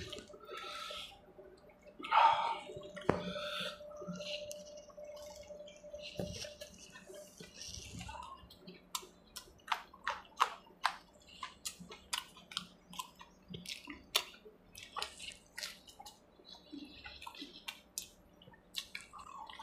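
Close-up wet chewing and lip smacking of someone eating samosa and fish curry by hand, with many short sharp mouth clicks that come thick in the second half.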